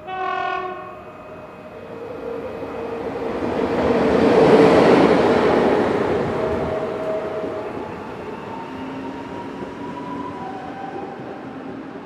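A short horn blast, then a train passing: a rush of rail noise that swells to its loudest about four to five seconds in and slowly fades, with faint horn tones over it.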